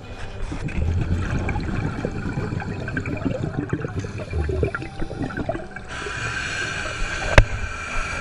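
Scuba diver's exhaled bubbles gurgling and crackling past an underwater camera housing. About six seconds in a steadier hiss joins them, and a single sharp click comes shortly before the end.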